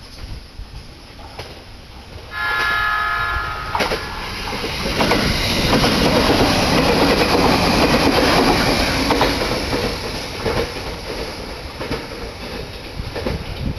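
A passing electric train sounds its horn, a chord of several steady tones lasting about a second and a half, about two seconds in. It then runs close by with a loud rumble and wheel clatter that slowly fades.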